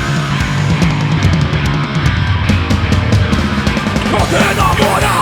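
Hardcore punk band playing an instrumental passage: distorted electric guitars, bass and drums with cymbals, loud and driving.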